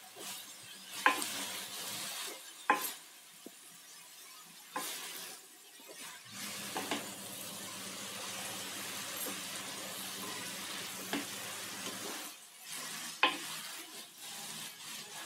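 Noodles and vegetables being tossed and mixed with a spatula in a non-stick kadhai: a faint frying sizzle, with a handful of sharp knocks where the spatula strikes the pan.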